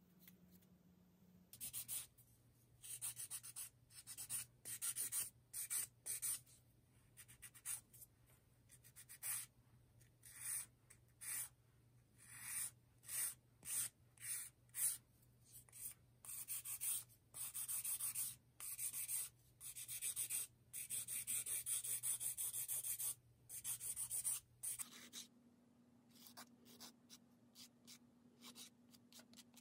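Hand nail file rasping over acrylic gel nail extensions in short strokes, some single and some in quick runs lasting a second or two. The strokes stop about three-quarters of the way through, leaving only faint light scratches.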